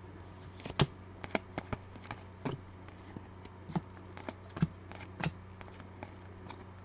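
A hand-held stack of 2020 Panini Legacy football trading cards being flipped through card by card, each card snapping off the next with a sharp click at an irregular pace. A faint low steady hum sits underneath.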